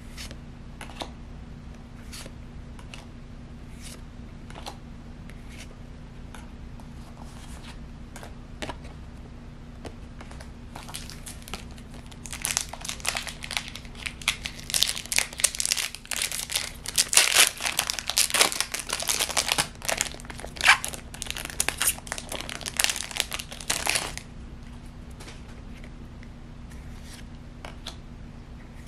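Foil trading-card booster pack wrapper crinkling and tearing as it is opened, loud and dense for about twelve seconds in the middle. Before and after, faint clicks of trading cards being handled.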